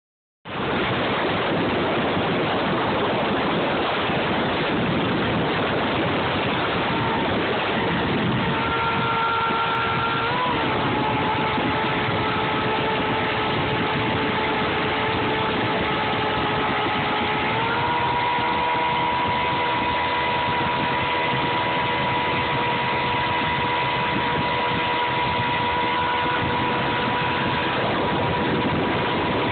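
Evinrude 225 H.O. V6 two-stroke outboard running at speed, under a loud, steady rush of wind and water. The engine's tone rises slightly about ten seconds in, steps up again a little before halfway, then holds steady.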